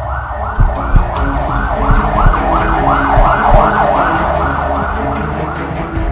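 Ambulance siren in a fast yelp, its pitch sweeping up and down about three times a second, loudest in the middle.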